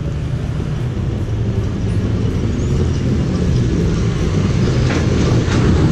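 Background music with a steady low bass line; sharp percussion hits come in near the end.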